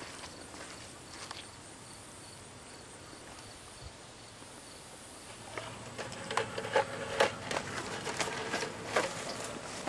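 Outdoor grass ambience with a faint, rapidly repeated high insect chirp, then, over the last four seconds, a busy run of irregular clicks and rustles that is louder than the background.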